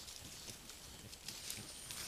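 Peccaries rooting and shuffling in loose soil: faint scattered soft knocks, scuffs and rustles of snouts and hooves. A thin, steady high whine joins near the end.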